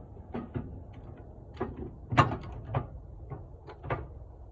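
Irregular sharp clicks and knocks of metal parts being handled: a battery cable's bare strands being worked into a crimp lug held in a hydraulic crimper. The loudest knock comes a little past two seconds in.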